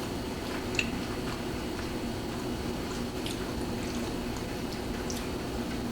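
People chewing food quietly, with a few faint clicks, over a steady low room hum.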